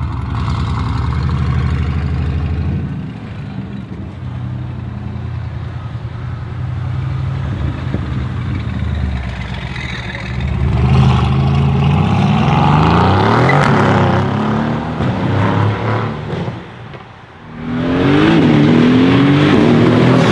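Mercedes-AMG GT S twin-turbo V8 through a custom straight-pipe exhaust, loud. It runs at low revs at first, then accelerates hard from about halfway, its pitch climbing and dropping back several times. After a brief lull near the end it accelerates loudly again.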